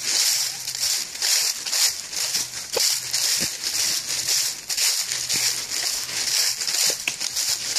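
Footsteps crunching through deep dry fallen leaves, a steady walking pace of about two steps a second, close to the microphone.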